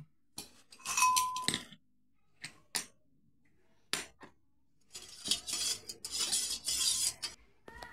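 A steel spoon clinks against a stainless-steel bowl several times, one strike ringing briefly. From about five seconds in, hot water is poured into the bowl in a continuous stream.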